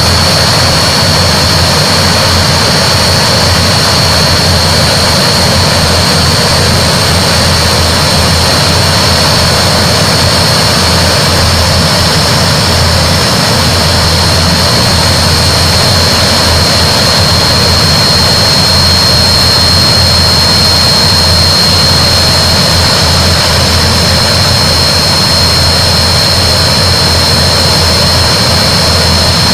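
Antonov An-12's four Ivchenko AI-20 turboprop engines running steadily, a high turbine whine held over the low drone of the propellers.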